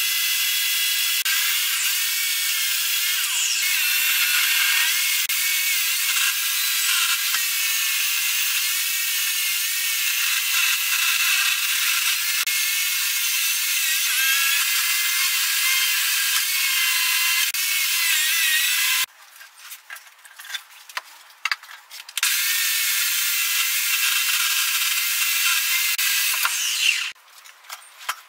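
Electric chainsaw cutting through a spalted beech log, its motor whine wavering up and down as the chain bites. It stops about two-thirds of the way through, a few knocks follow, then it cuts again for about five seconds and stops shortly before the end, with the wood being handled.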